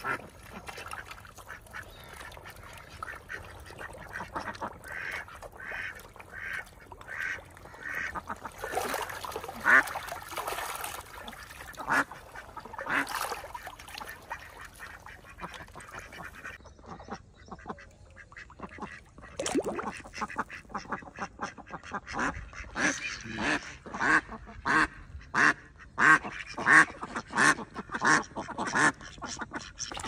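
A flock of domestic ducks quacking: short calls repeated in series, scattered at first, then a dense, rapid run of louder quacks in the last ten seconds.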